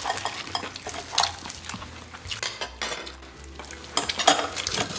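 Close-miked eating-table sounds: chopsticks and spoons clicking and clinking against dishes, with a dense crackling, stirring noise throughout.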